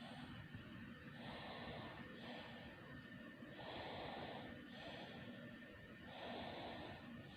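A sleeping baby snoring softly. Noisy breaths come about every two and a half seconds, each cycle a longer snore followed by a shorter one.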